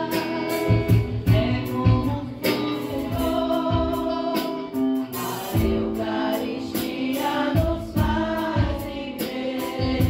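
Church worship band and congregation singing a hymn: a woman's amplified lead voice and massed voices over keyboard, guitar and a drum kit keeping a steady beat.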